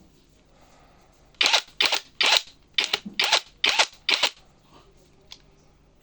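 Impact wrench fired in a string of about seven short trigger blips, each a fraction of a second, coming quickly one after another in the middle of the stretch.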